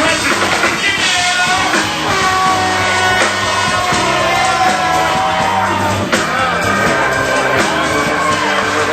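Live band music with a lead voice singing long, sliding notes over a steady bass line.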